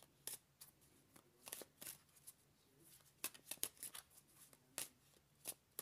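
Faint, scattered flicks and clicks of tarot cards being handled and shuffled.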